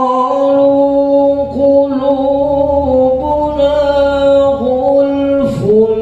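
A man reciting the Quran in the melodic tilawah style, in maqam Hijaz: long held, wavering notes with short breaks between phrases.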